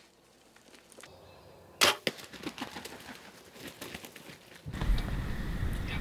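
A bow shot at a wild turkey: one sharp crack about two seconds in, followed by scattered small thumps and rustles as the shot turkey flops on the ground. A steady low rumble starts near the end.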